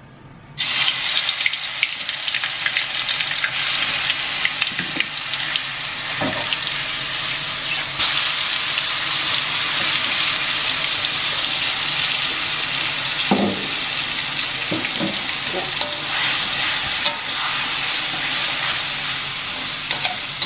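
Ground spice paste of chilies, tomato, garlic, shallots and candlenuts hitting hot oil in a wok and sizzling steadily, starting suddenly about half a second in. A spatula stirs and scrapes the paste as it sautés.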